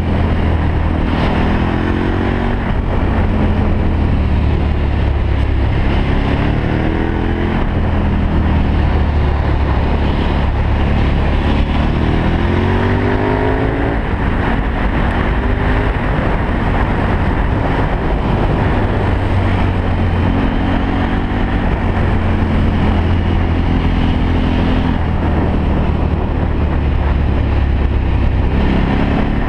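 Motorcycle engine running under way, its pitch rising several times as the bike accelerates through the bends and dropping back in between, over a steady rush of wind and road noise.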